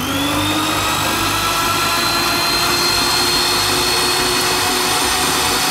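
Electric food slicer's motor and spinning blade running with a steady whine, its pitch rising slightly to full speed in the first second.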